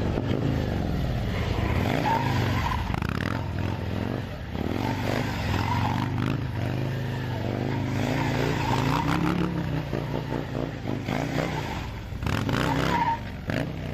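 Harley-Davidson V-twin motorcycle engine revving, its pitch rising and falling several times as the bike is ridden hard.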